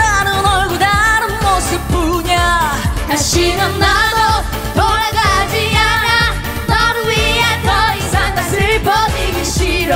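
Female vocalists singing a dance-pop song over a backing track with a steady beat.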